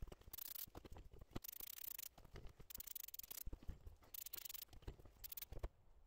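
Faint, scattered clicks and short rustles of small parts and tools being handled.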